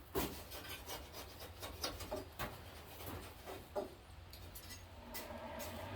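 Light scrapes and scattered clicks of metal being handled. About five seconds in, a steady forge roar with a low hum begins and holds.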